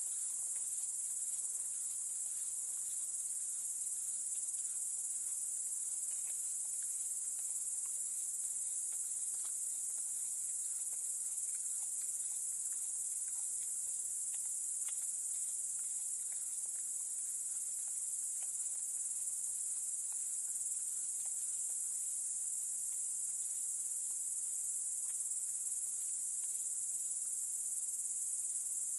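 A steady, high-pitched chorus of night insects with no breaks, with a few faint scattered clicks over it.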